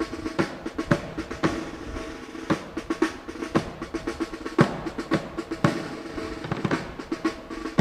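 Military parade drums, snare with some bass drum, beating a steady marching cadence for a drill, with a stronger stroke every second or so.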